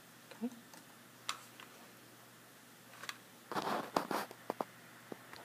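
A few scattered computer keyboard keystrokes and clicks, with a short rustling noise a little past halfway.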